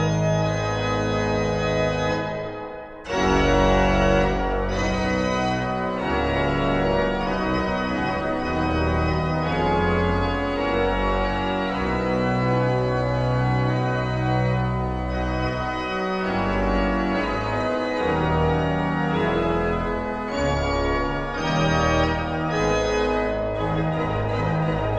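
Pipe organ played in full, sustained chords with moving bass notes. The sound breaks off briefly just before three seconds in, then comes back at full strength.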